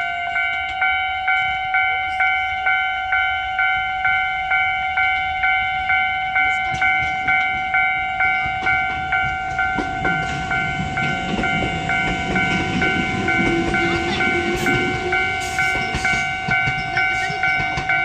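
Japanese level-crossing alarm ringing its repeating electronic ding, about one and a half dings a second. From about ten seconds in, a Tobu 8000-series electric local train pulls away over the crossing, its motors and wheels rumbling, with a rising motor whine.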